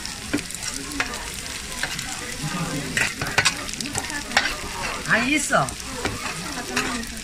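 Soondae bokkeum stir-frying on a hot stainless steel tray: the food sizzles while a metal spatula scrapes and stirs through it, clinking sharply against the tray several times.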